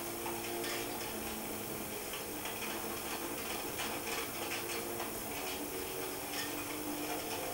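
Volkswagen rally car's engine heard from inside the cabin on a gravel stage, its pitch rising and falling as the revs change, over steady road noise, with scattered clicks and knocks throughout.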